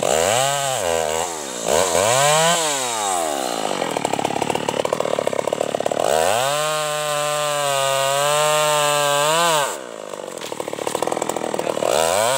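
Stihl MS 381 two-stroke chainsaw with an opened-up, free-flowing muffler, blipped twice up to high revs and back, then idling. It is held at full throttle for about three and a half seconds, drops suddenly back to a ragged idle, and is blipped once more near the end.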